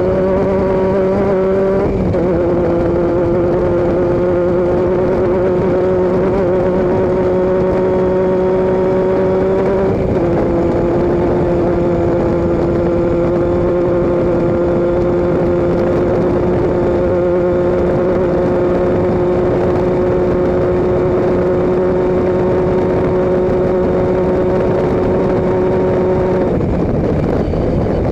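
A vehicle engine running loudly at steady revs. Its note holds level with slight downward steps about 2 and 10 seconds in, then dips and climbs again near the end.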